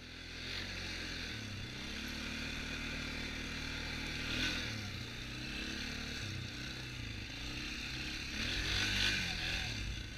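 ATV engine running under way, heard through a GoPro camera housing, its pitch rising and falling with the throttle, with a steady hiss of wind and road noise. It gets louder twice, about four and nine seconds in.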